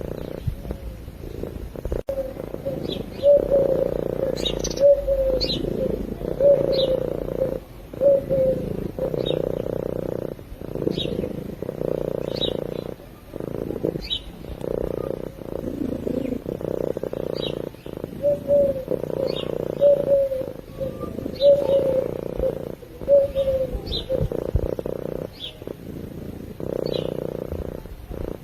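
Domestic cat purring steadily, the purr breaking briefly every two to three seconds. Short high chirps repeat about every second and a half over it.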